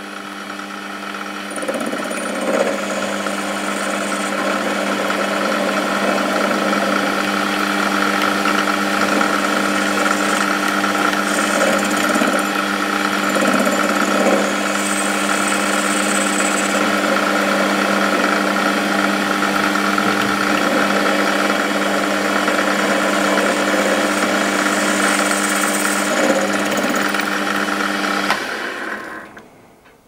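Small metal lathe running at 1000 RPM with a steady motor-and-gear hum and whine while the tool faces off a one-inch slug of home-cast aluminium. Near the end the lathe is switched off and the sound dies away.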